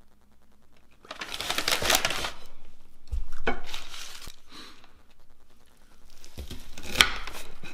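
Food packaging rustling and being set down on a table, with a dull thump about three seconds in. Then a knife cuts through a doughnut-bun chicken sandwich, with a sharp click near the end.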